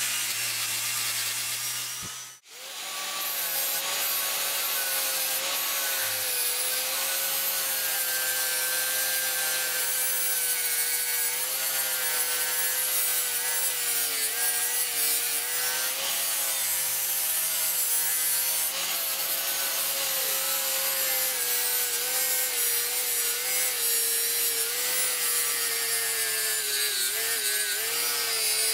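Angle grinder with a sanding disc running steadily against the steel of a rusty axe head, stripping rust: a motor whine over the hiss of abrasive on metal, the pitch dipping slightly now and then as the disc is pressed in. The sound breaks off briefly about two seconds in and resumes.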